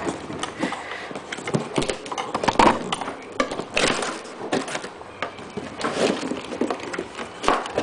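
A cardboard laptop box being opened and its packing handled, with irregular rustles, scrapes and light knocks.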